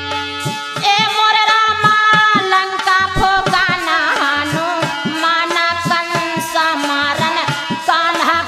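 Instrumental passage of a sohar folk song: hand-drum strokes keep a steady rhythm, and about a second in a melodic line enters over them, bending and wavering in pitch.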